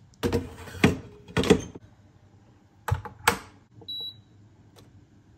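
Metal inner pot set down into an electric multi-cooker with scraping clunks, then two sharp clicks as the lid is shut, and one short high beep from a control-panel button pressed to start the rice cooking.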